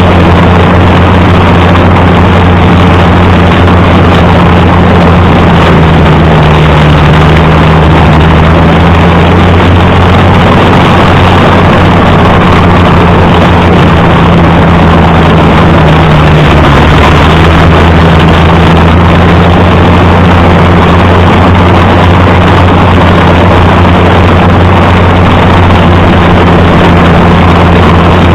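Allis-Chalmers D19 tractor's six-cylinder engine running steadily while pulling a bush hog mower, with a brief sag in pitch about two-thirds of the way through. Its carburetor's fuel jet is half plugged with dirt from the tank.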